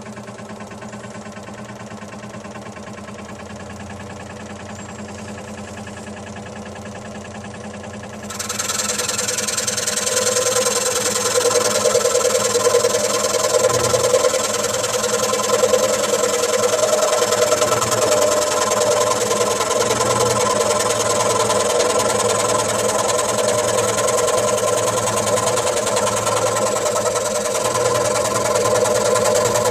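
Axminster Craft AC405SS scroll saw running with a steady hum; about eight seconds in the blade starts cutting a test piece, and a louder, hissier sawing sound joins the motor and carries on.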